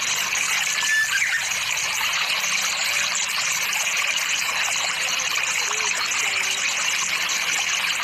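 Steady outdoor nature ambience under trees: a continuous high hiss, with a brief high chirp about a second in.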